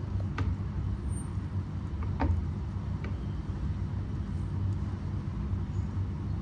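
A steady low hum in the background, with a few faint taps and scrapes from a silicone spatula folding dry flour and cocoa powder into batter in a mixing bowl.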